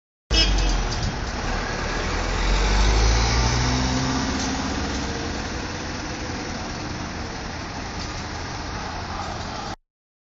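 Police vans driving past, their engines rumbling, with one engine note rising and peaking about three seconds in before settling into a steadier traffic rumble. The sound cuts off just before the end.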